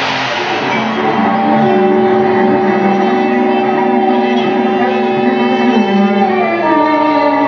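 A string trio playing live, with long held bowed notes sounding together. A sudden harsh, noisy attack at the very start dies away within about a second. The held pitches shift downward about six and a half seconds in.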